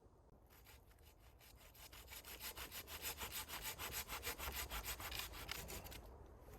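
Hand saw cutting through wood with fast, even back-and-forth rasping strokes. The strokes start about half a second in, grow louder and stop shortly before the end.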